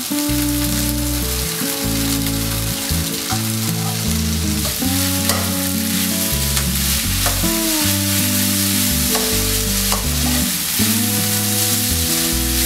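Flat rice noodles sizzling in a nonstick frying pan as they are stirred and tossed with a metal fork, with a few sharp clicks of the fork against the pan.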